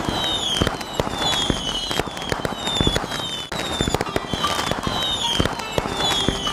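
Fireworks going off in quick succession: many sharp cracks and pops, with a short falling whistle about once a second.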